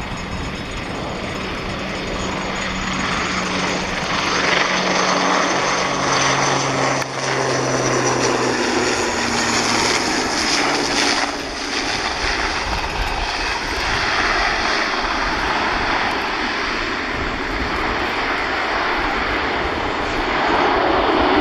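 Twin Pratt & Whitney Canada PW127G turboprops of a CASA C-295M transport plane landing, a steady propeller drone. Its tones drop in pitch partway through as the plane passes and touches down, and the engine noise grows a little louder near the end as it rolls out on the runway.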